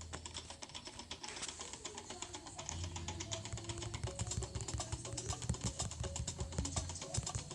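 Rapid, irregular clicking of computer keys and buttons as someone clicks around searching for a button.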